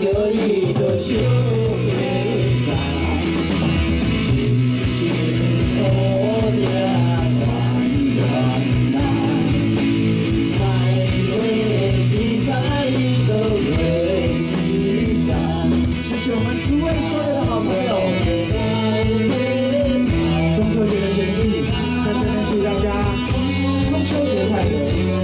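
Live rock band playing a song: electric guitar leading over bass and drums.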